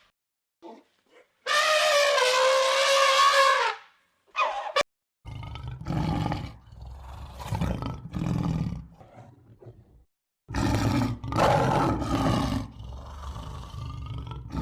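A string of animal calls cut from several clips: one long pitched call a couple of seconds in, then from about five seconds a series of deep, rough roars, typical of a big cat such as a tiger.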